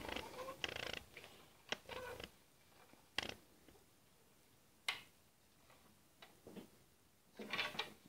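Small plastic Caterpillar toy dump truck handled and rolled on a glass tabletop: faint scattered clicks and knocks of its plastic body and wheels against the glass, with some scraping in the first couple of seconds.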